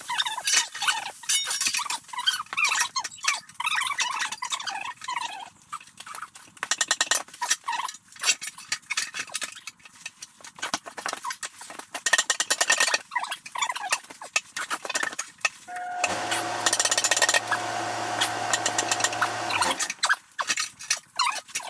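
Irregular metallic clinks and knocks of hand tire tools, tire irons and a manual bead breaker, worked against a wheel. A steady pitched hum runs for about four seconds near the end.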